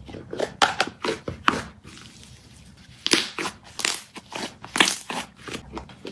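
Irregular crunching and crackling, a quick series of sharp crackles that thins out for about a second partway through, then picks up again.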